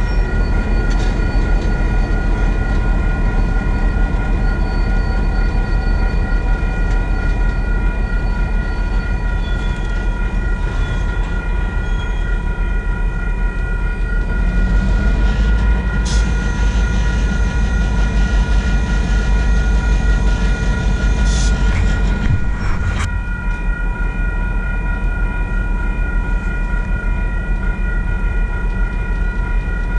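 Railway crossing signal bell ringing steadily while a CN diesel freight train rumbles at the crossing, with a few sharp metallic clanks past the middle. The crossing stays activated because the train has stopped short of the yard inside the crossing circuit.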